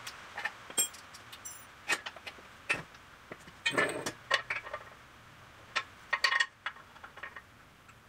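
Steel parts of an engine hoist being handled: a string of short metal clinks, knocks and rattles, some with a brief ring, busiest about four seconds in and again a little past six seconds.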